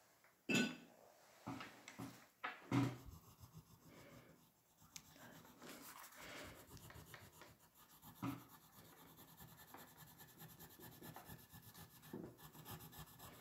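Oil pastel rubbing and scribbling on paper, laying down a light base colour, faint and steady through the second half. Two short knocks come in the first few seconds.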